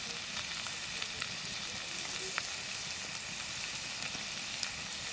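Pork offal sizzling on a hot iron cauldron lid over a wood fire, a steady frying hiss with scattered small pops, the meat still cooking.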